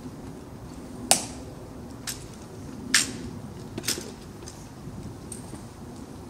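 A series of sharp clicks or knocks at uneven spacing, three loud and several fainter, over a low steady background hum.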